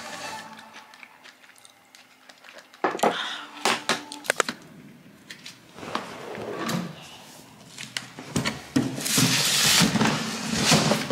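Footsteps and sharp knocks on a hard floor, then a cardboard parcel box being picked up and handled, with a rough rustling scrape near the end.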